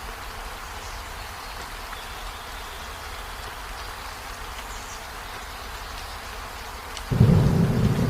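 Steady hiss of rain, then a sudden loud, low rumble of thunder breaks in about seven seconds in.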